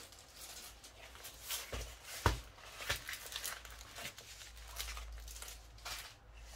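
Plastic film and a paper-backed canvas rustling and crinkling as a rolled diamond painting canvas is unwrapped and unrolled by hand: a handful of separate short rustles, the sharpest a little over two seconds in.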